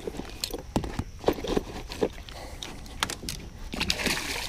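Irregular clicks, knocks and clatter of gear and plastic tackle boxes being rummaged through inside an aluminum rowboat. Near the end, a splash as a hooked bowfin thrashes at the surface beside the boat.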